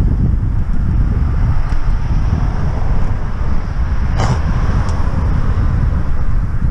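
Wind buffeting the microphone of a camera on a moving bicycle, a steady low rumble, with a car passing on the road alongside around the middle. A brief click about four seconds in.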